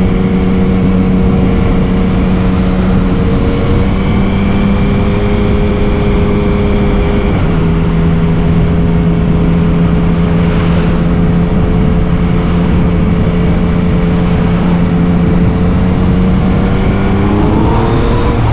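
Yamaha MT-09's three-cylinder engine running steadily under way, dropping to a slightly lower steady pitch about seven seconds in, then rising as it accelerates near the end.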